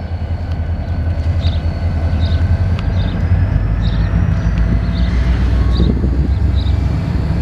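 CSX local freight train rolling past in reverse: a heavy low rumble that grows louder, with thin high tones that slowly rise in pitch and a short high chirp repeating about every 0.7 seconds.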